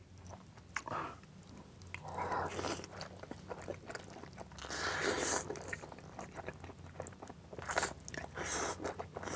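Close-miked eating of saucy black-bean instant noodles with fried egg: wet chewing and slurping in several bursts, with small mouth clicks between them.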